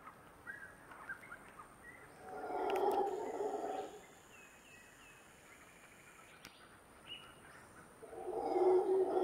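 Mantled howler monkeys howling in two bouts of rough, low calls: one about two seconds in that fades by four seconds, and another starting near the end. Between the bouts there are short high chirps and a steady high whine.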